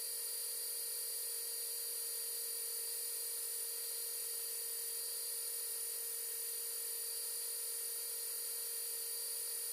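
A machine tool running steadily with a high-pitched whine, unchanging throughout.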